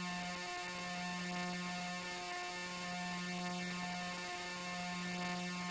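Steady electrical mains hum with a ladder of overtones, briefly dipping about every two seconds.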